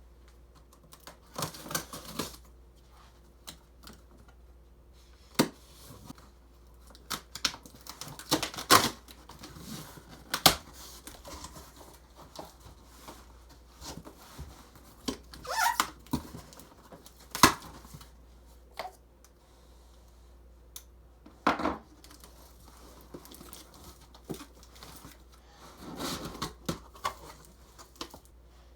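Cardboard box and packing materials being opened and handled: intermittent tearing and crinkling with scattered knocks and clicks.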